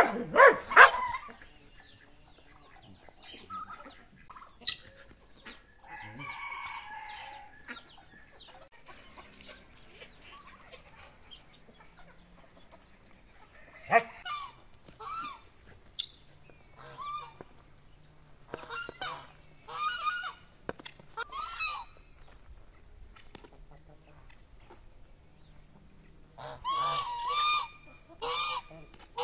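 Farmyard poultry calling: hens clucking and short honking calls from the mixed flock. The calls come in bursts, at the start, around the middle, and loudest again near the end.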